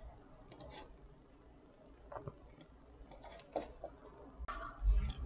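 Faint, scattered computer mouse clicks at irregular intervals, with a brief louder rustle near the end.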